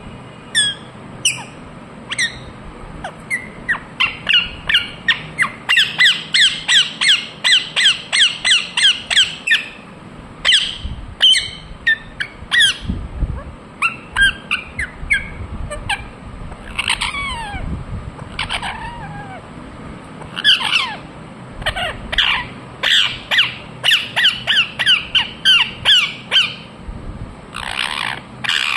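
Indian ringneck parakeet (rose-ringed parakeet) calling in rapid runs of short, sharp squawks, about three a second, with stretches of scattered, downward-sliding calls between the runs.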